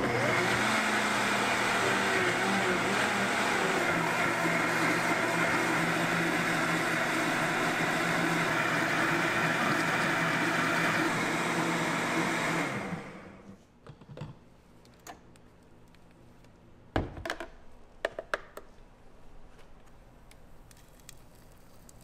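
Countertop blender running at high speed, puréeing leafy greens with liquid: the motor spins up at the start, runs steadily, then is switched off and winds down about 13 seconds in. A few light knocks follow near the end.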